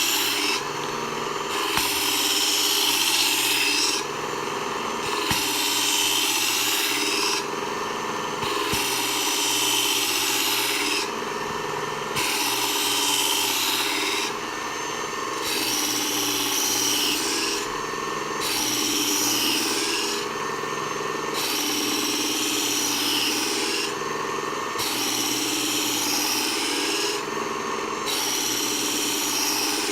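Work Sharp combo electric belt knife sharpener running steadily while the Kershaw 3410's steel blade is drawn across the abrasive belt in repeated grinding passes. Each pass lasts about two to three seconds, with a short break between, about one every three to four seconds. The blade is badly abused, its tip nearly gone, so the edge is being reground.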